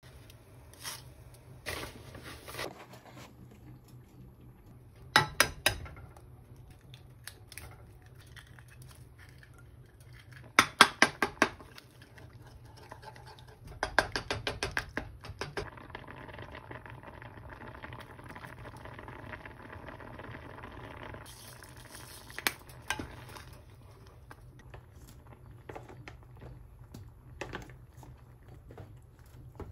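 Oatmeal porridge with egg bubbling in a small saucepan while a wooden spoon stirs it and clacks against the pan in several short clattering bursts. A low steady hum runs underneath, and there is a stretch of steady bubbling hiss in the middle.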